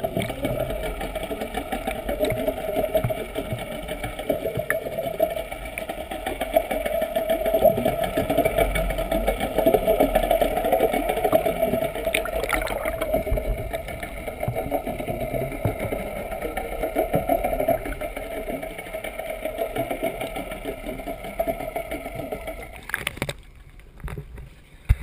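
Boat engine running steadily, heard muffled through the water by a camera held underwater. It stops suddenly near the end.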